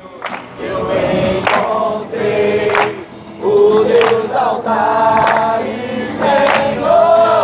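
A group of young people singing a Christian praise song together, several voices on long held notes.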